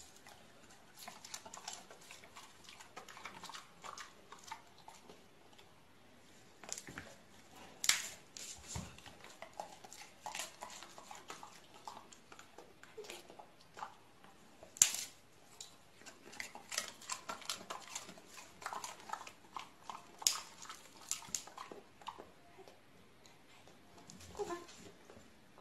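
Scattered small clicks, taps and shuffles as two dogs move about and mouth a soft fluffy toy, with a couple of sharper knocks about eight and fifteen seconds in.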